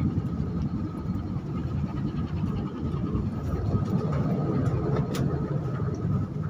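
Cargo ship's engines and machinery running during a sea trial: a steady low rumble with a faint, steady whine above it and a few light clicks.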